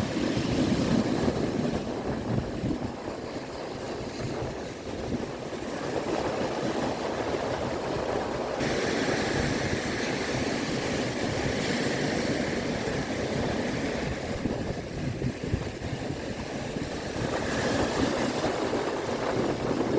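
Sea waves washing and breaking on the shore in a steady rush of surf, with wind on the microphone.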